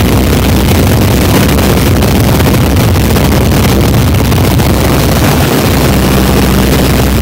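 Open-cockpit biplane's piston engine and propeller running steadily in cruise flight, heard from the cockpit with loud wind rush over it.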